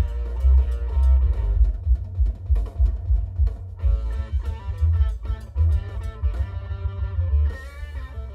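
A guitar-and-drums song played through a Kicker CompR CWR122 12-inch subwoofer in a ported enclosure tuned to 32 Hz. The deep bass notes pulse with the beat and are far louder than the guitar and drums above them.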